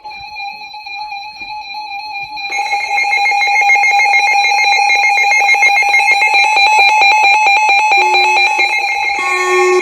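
Electronic emergency alert tone: steady high-pitched tones, joined about two and a half seconds in by a rapid pulsing buzz, with further tones coming in near the end.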